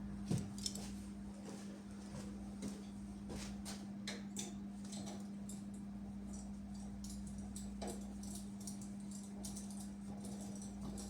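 Scattered light clicks and ticks, irregular and small, over a steady low hum; the sharpest pair comes just under a second in.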